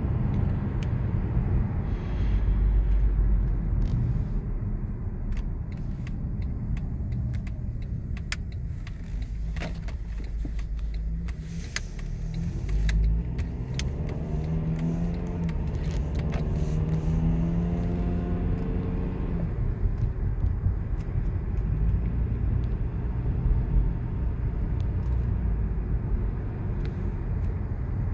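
Car cabin noise while driving: a steady low rumble of engine and tyres on the road. A few light clicks come a third of the way in. Around the middle, the engine note rises for several seconds as the car picks up speed.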